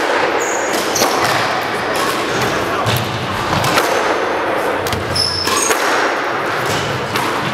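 Squash rally: the ball smacking off the walls and racquets several times, with short squeaks of court shoes on the wooden floor.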